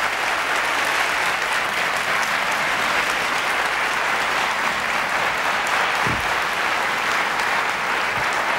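A theatre audience applauding steadily, with a brief low thump about six seconds in.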